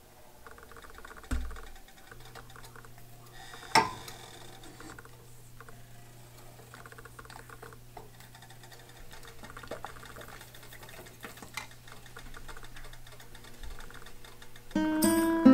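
Light taps and clicks of a wooden skewer stirring melting beeswax in a glass measuring cup set in a pan of hot water, with a low steady hum underneath and two sharper knocks against the glass about one and four seconds in. Music starts near the end.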